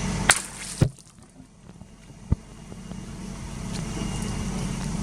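A car engine running steadily, broken off by two sharp cracks about half a second apart. Then a quieter, steady vehicle noise slowly grows louder, with a single click about two seconds in.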